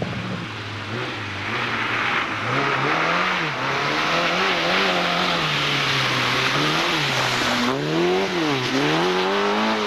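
Racing car engine driven hard, its pitch climbing and dropping over and over, with quick dips near the end, over a loud rushing noise.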